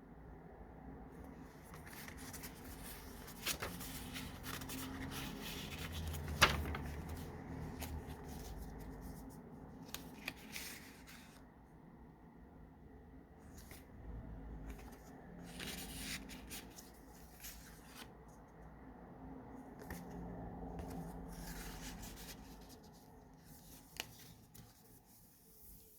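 Paper pages of a handmade junk journal being turned and handled: rustling and rubbing paper, with a few small clicks and one sharp tap about six seconds in.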